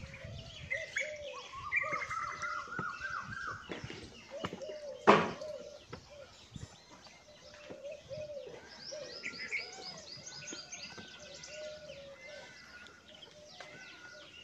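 Several birds chirping and calling in repeated short phrases at different pitches. A single sharp knock about five seconds in is the loudest sound.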